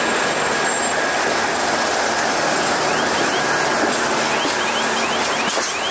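Long train of open freight wagons rolling past close by, a steady rumble and rattle of wheels on the rails. From about halfway through, the wheels give short, high squeaks.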